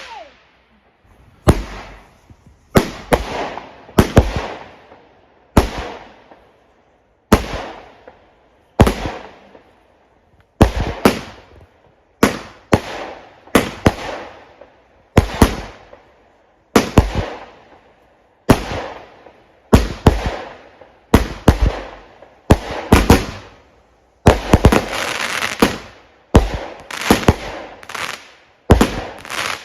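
A multi-shot consumer firework barrage going off shot after shot. About twenty sharp bangs come roughly one every second, each fading away over about a second, with a quicker cluster of shots near the end.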